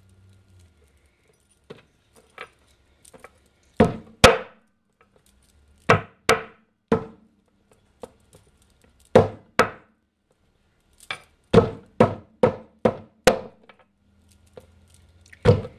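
A meat pounder striking shiitake mushroom stems on a wooden tabletop: sharp knocks, starting about four seconds in. They come in twos and threes, then a faster run of about five near the end.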